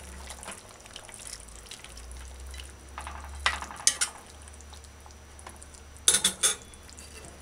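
Spoon stirring a thin, brothy curry stew in an aluminium pot, the liquid softly sloshing, with sharp clinks of the utensil against the pot twice about three and a half seconds in and a short run of clinks about six seconds in.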